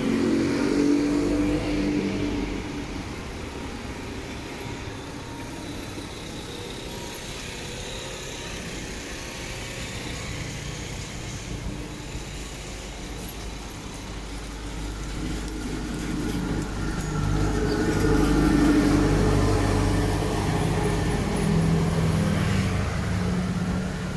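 Street traffic: a motor scooter's engine is loud and close at the start, then a steady traffic hum, and a heavier engine builds up and passes about two-thirds of the way through with a whine that rises and falls.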